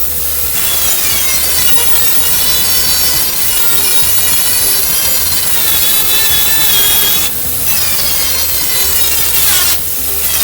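Electric grinder working on sheet steel: a loud, steady grinding hiss over a high motor whine that wavers in pitch as the disc is loaded, with two short breaks, about seven seconds in and near the end.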